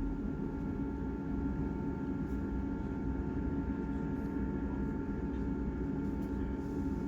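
Class 158 Sprinter diesel multiple unit heard from inside the carriage: a steady low rumble with a constant hum and a couple of faint whining tones held at one pitch.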